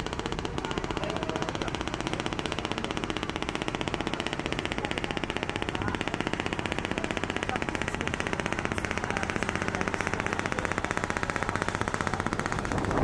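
A boat engine running steadily with a rapid, even chugging beat.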